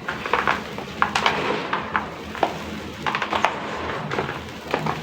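Dry sand-cement clay crumbling in a tub of water: a steady fizzing crackle broken by irregular sharp crunches.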